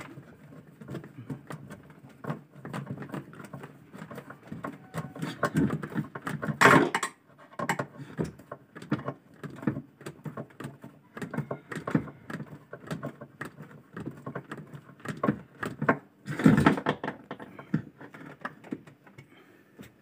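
Screws being driven by hand into a washing machine gearbox's steel mounting plate: irregular metallic clicks, taps and scrapes of the tool and screws, with two louder rattles.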